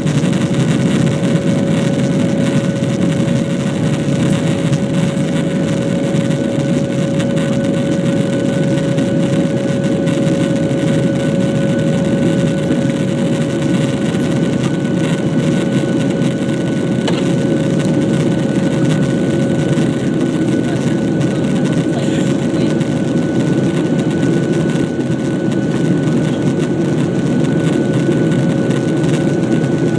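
Jet airliner cabin noise in the climb after take-off: the engines and the rush of air outside make a steady, loud noise, with a steady whine running through it.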